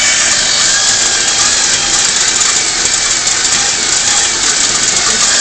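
Motor mechanism of a homemade popcorn vending machine running steadily, a loud, even whirring noise with faint wavering tones.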